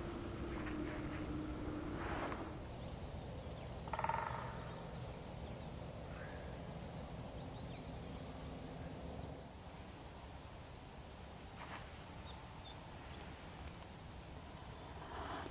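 Small birds chirping and calling quietly, with short high notes scattered throughout. A brief louder sound comes about four seconds in, and a couple of soft knocks are heard.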